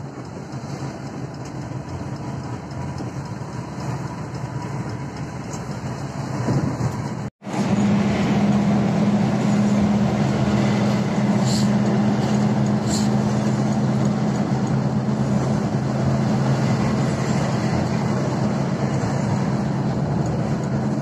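Intercity bus heard from inside its cabin at speed: a steady engine drone with road noise. A little over a third of the way in, the sound cuts out for an instant and comes back louder, with a strong steady low engine hum.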